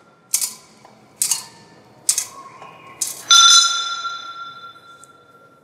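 Altar bells rung at the elevation of the consecrated host: four short rings about a second apart, then a louder strike that rings on and fades away over about two seconds.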